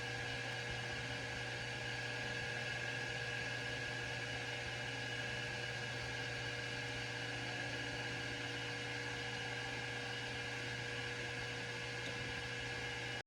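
Grizzly G0776 metal lathe running steadily, a constant hum with a high whine and no change in speed.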